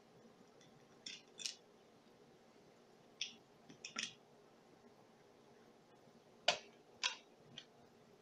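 Short sharp clicks and scrapes of the small plastic and metal parts of an HO scale model locomotive being handled and fitted together, coming in three rough pairs, the loudest about six and a half seconds in.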